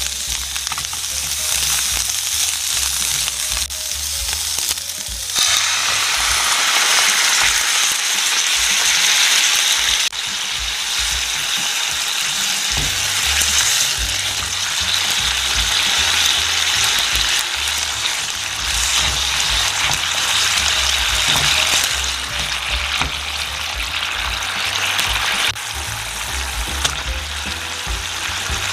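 Diced chicken breast sizzling in oil in a nonstick frying pan while a spatula stirs it. About five seconds in the sizzle turns suddenly louder and brighter as a soy, honey and sriracha sauce hits the hot pan, then eases a little near the end.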